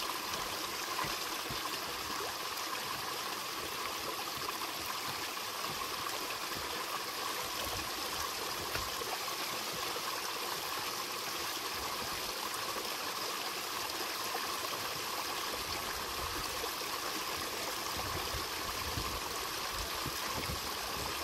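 A small mountain stream running and splashing down over rocks close by, a steady, unbroken rush of water that cuts off abruptly at the end.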